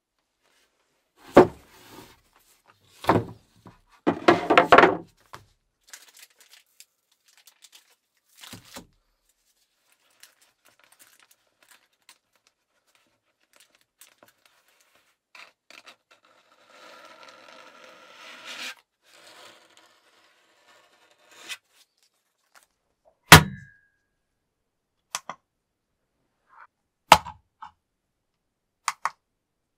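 Handling noise: a few loud crinkling, tearing bursts of packaging in the first five seconds, and a softer stretch of rubbing a little past halfway. Then several sharp knocks of objects set down on a hard surface; the loudest, about two-thirds through, rings briefly.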